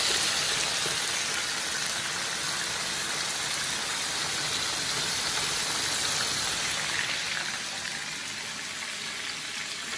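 Pieces of chicken back frying in hot corn oil in a frying pan, a steady sizzle that eases a little near the end.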